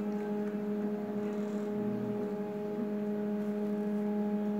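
Three-axis CNC router running: a steady pitched hum with overtones, with a faint low rumble about two seconds in.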